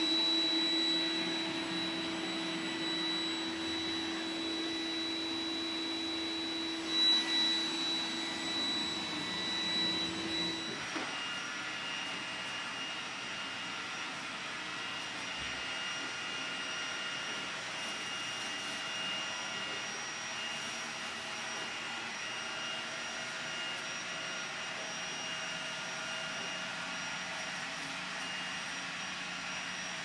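iRobot Roomba 980 robot vacuum running: a steady motor whine over the hiss of its suction and brushes. About 11 seconds in, as it goes from carpet to a tiled floor, the pitch of the whine changes and the sound gets slightly quieter.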